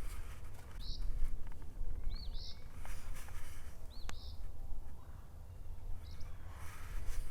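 A songbird calling: short high notes, some with a quick rising-and-falling shape, repeated every second or two over a steady low rumble.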